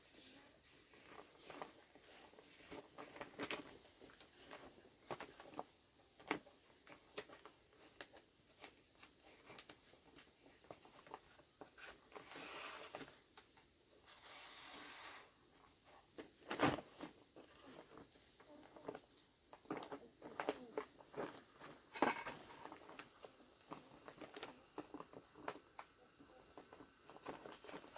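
Insects calling: one steady high buzz, and another high chirp pulsing on and off about every second and a half. Scattered short knocks and clicks are heard over it, the loudest about 17 seconds in.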